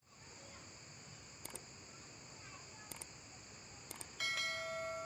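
Sound effects of an on-screen subscribe-button animation: three quick double mouse clicks about a second apart, then a loud bright bell-like chime near the end that rings on steadily. Behind them, a steady high drone of insects.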